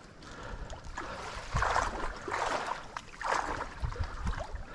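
Water splashing in several short rushing bursts about a second apart, the first and loudest about one and a half seconds in: a hooked tiger muskie thrashing at the surface in the shallows.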